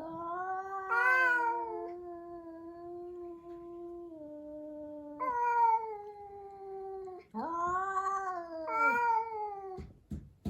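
A cat caterwauling in three long, drawn-out wails: the first held for about five seconds and stepping down in pitch near its end, then two shorter ones that swell and slide down. This is the siren-like yowl of a cat squaring up for a fight.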